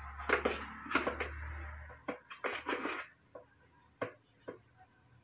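Kitchen handling noises: a run of light clicks and knocks from utensils and containers, with a hiss and low hum in the first two or three seconds before it goes quieter.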